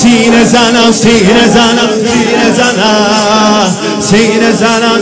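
A male reciter chanting a Shia mourning lament (noha) through a microphone in long, wavering, ornamented sung lines, with the voices of the congregation singing along.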